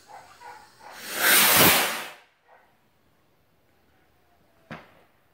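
Firework launching with a loud whooshing hiss that swells and fades over about a second, followed a few seconds later by a single sharp pop.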